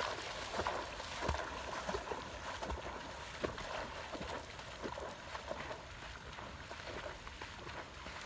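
Splashing footsteps of a person wading fast through shallow lake water, an irregular run of sloshes that grows fainter as the wader moves away.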